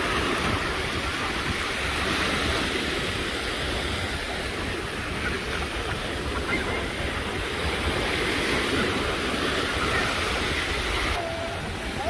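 Small waves breaking and washing up the sand at the water's edge, foaming over bare feet, with wind buffeting the microphone. The wash swells and eases in slow surges.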